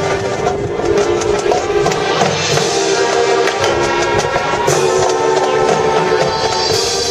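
High school marching band playing, brass holding sustained notes over repeated drumline strikes.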